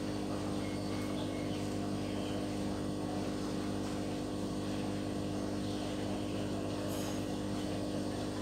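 Steady low hum made of several unchanging pitched tones, the even drone of a running motor or appliance.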